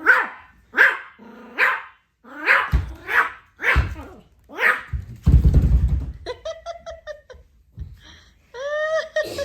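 Pomeranian puppy barking: about seven sharp, high barks in a row, then a short rough rumble and several higher, drawn-out whining yelps near the end.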